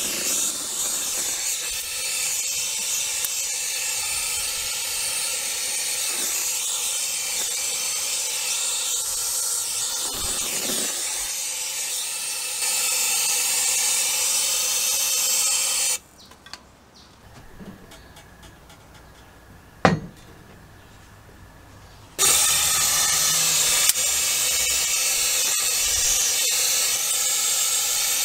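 Powder-coating gun spraying powder with a steady hiss. The hiss breaks off for about six seconds past the middle, with a single sharp click in the gap, then starts again.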